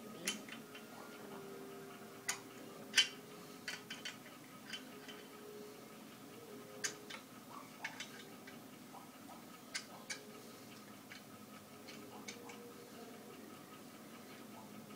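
Irregular sharp metal clicks and taps, about one or two a second, of a small wrench being worked and repositioned on the handlebar clamp bolt of a balance bike as the bolt is tightened.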